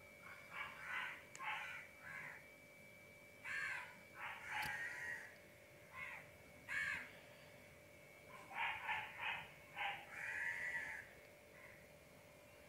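Crows cawing repeatedly: short calls that come in several groups, the busiest run about nine to eleven seconds in.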